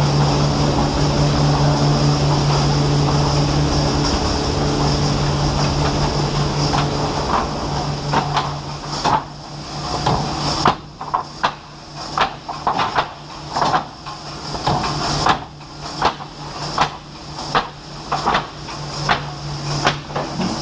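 Industrial machinery running with a steady low hum. From about nine seconds in, irregular clattering knocks come in over it, coming roughly once or twice a second.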